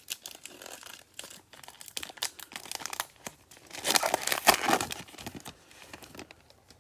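Wrapper of a basketball trading card pack crinkling and tearing as the pack is opened, in irregular crackles with the loudest stretch about four seconds in.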